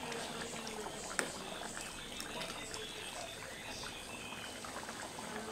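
Thick coconut-milk stew bubbling and popping in an aluminium pan as a metal ladle stirs it, with one sharp tap of the ladle on the pan about a second in.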